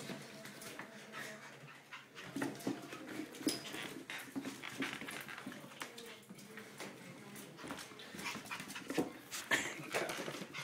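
Small dog whining and whimpering in short repeated bursts, with scattered clicks and scuffles.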